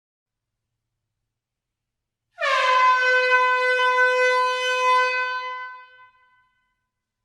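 Air horn sounding one long blast about two seconds in, dipping briefly in pitch at the start, then holding a steady tone for about three seconds before fading out.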